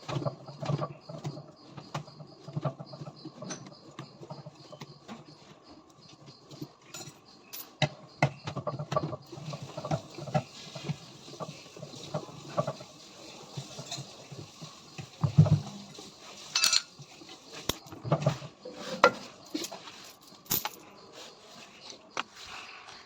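Irregular clinks, knocks and rattles of hand tools and metal parts being handled as a front-load washing machine is taken apart, with a couple of louder knocks past the middle.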